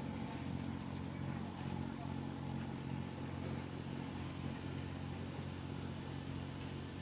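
An engine running steadily at an even low speed, a constant low drone.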